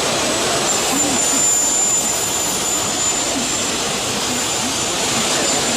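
CNC machining center running: a steady rushing hiss with a thin, high, steady whine that comes in about a second in and fades near the end.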